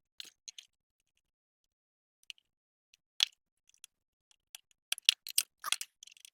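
Scattered small clicks and taps of hands and a screwdriver handling small parts and screws on a lathe's control panel, with one sharper click about three seconds in and a quick run of clicks near five seconds.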